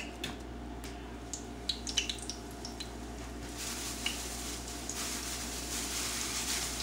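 Battered porgy frying in hot oil: a few scattered light crackles, then about three and a half seconds in the fish goes into the oil and a steady sizzling hiss builds and holds.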